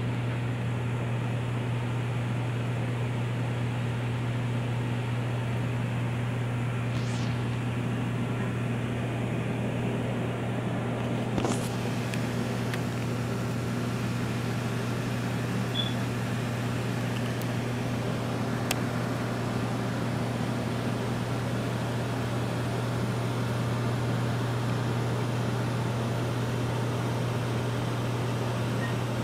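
Steady low electrical hum with an even hiss from running reef-aquarium pumps and equipment, with a couple of faint clicks partway through.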